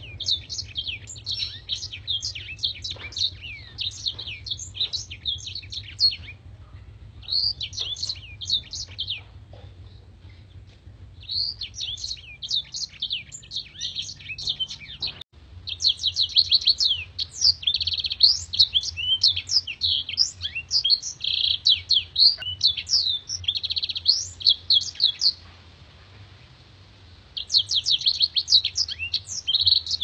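Caged blackthroat (black-throated canary) singing long, rapid, high twittering song phrases in five runs, with short pauses between them. A faint steady low hum runs underneath.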